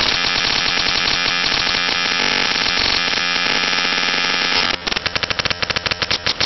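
A looped sound file played back by a Max/MSP patch at a speed setting of about -220, coming out as a dense, buzzing, static-like digital noise. About five seconds in it changes to a rapid stutter of short, evenly spaced pulses as the loop selection is moved.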